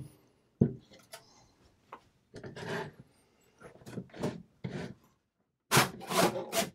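Sheet-metal shield plate of a Wavetek 288 function generator scraping and rubbing against the chassis as it is worked loose and slid out, a tight fit: a series of short scrapes, the loudest near the end.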